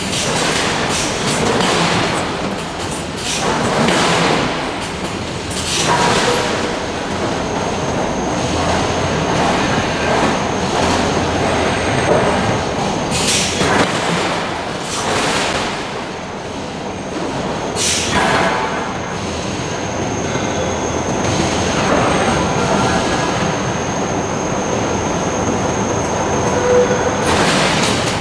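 Forge shop din from a hydraulic forging hammer working hot steel, with heavy strikes at irregular intervals over steady machinery noise. A thin, high steady whine runs through most of it, starting about six seconds in.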